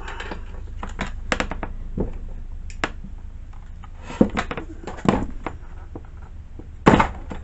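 Metal tool clicks and knocks as a tight spark plug is worked loose from a Zenoah-clone chainsaw engine. The clicks come irregularly, with a quick cluster about a second and a half in and the loudest knock near the end, over a low steady hum.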